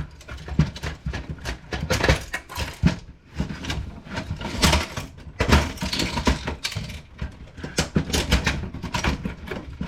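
Irregular clicks, knocks and rattles of plastic printer parts being handled and pried apart during disassembly.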